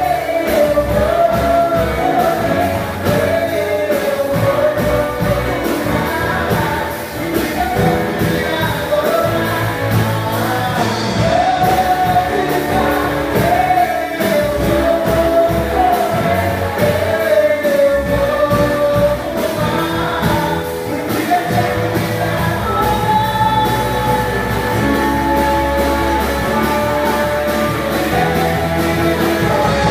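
Live worship band playing, with drums, percussion and bass under a singer carrying the melody, heard through a phone in a large hall.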